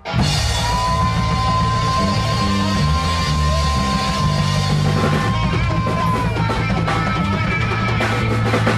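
Rock band rehearsing at full volume: drums, bass and electric guitar come in together on a hit. A lead note is held for several seconds and slides down about six seconds in, over steady bass notes.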